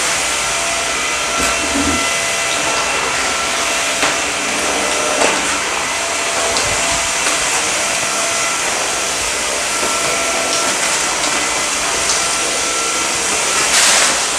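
Samsung Jet VS70 cordless stick vacuum running steadily with its brush roll turning over low-pile carpet, picking up pet hair. It makes an even rushing noise with a faint steady whine, a few short clicks, and a brief louder rush near the end.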